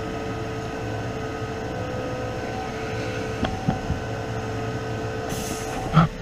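Spray booth exhaust fan running with a steady hum. A few light knocks about halfway through, then a short hiss and a single thump near the end.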